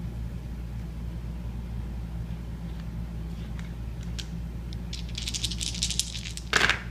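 King of Tokyo game dice handled with a few clicks, then shaken in the hand in a quick rattle for about a second. They are thrown down with one loud clatter near the end.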